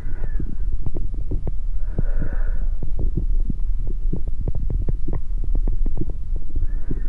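Amplified heart and body sounds: a dense, low throbbing full of rapid short thumps and clicks, with a breath-like hiss swelling about two seconds in and again near the end.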